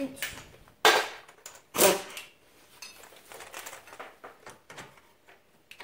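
Two sharp metallic clanks about a second apart, then a run of light clicks as metal hand tools and parts are handled during ATV hub reassembly.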